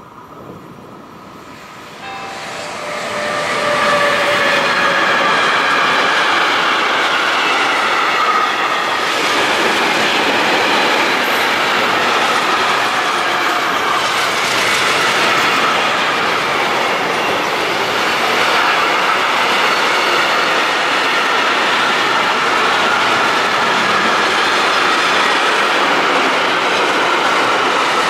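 A class 189 (Siemens ES 64 F4) electric locomotive approaches and passes at speed. Its whine falls in pitch as it goes by. A long intermodal freight train of container and trailer wagons follows, rolling past with steady, loud wheel-on-rail noise.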